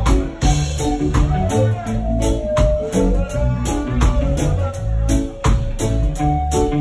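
Reggae band playing live with an electric bass line, keyboard and drums keeping a steady beat.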